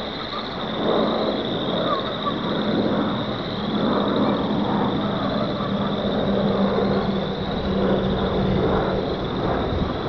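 A dense chorus of pond frogs calling together, a continuous high-pitched din that never breaks. Underneath runs a low steady hum that grows louder about six seconds in and fades near the end.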